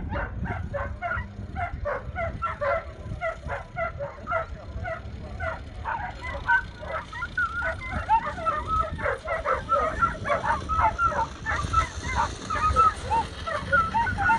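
Racing sighthounds yipping and barking in quick, overlapping yelps, several a second.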